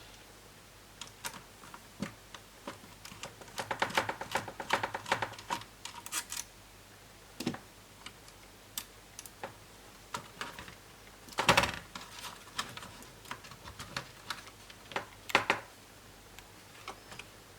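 Scattered clicks and taps of small tools against a plastic laptop case, in irregular bursts with a few louder clicks, as a Lenovo B550 laptop is taken apart and a screw is sought under the palm rest.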